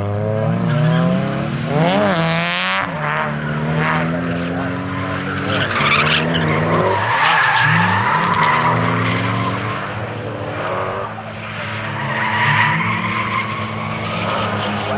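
Car engine revving hard up and down while drifting, with the tyres squealing and skidding as they spin and smoke. The squeal is strongest about halfway through and again near the end.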